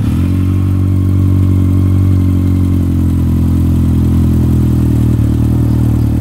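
Honda CB1100RS air-cooled inline-four engine idling steadily through an OVER Racing GP Performance 4-into-1 full-system exhaust.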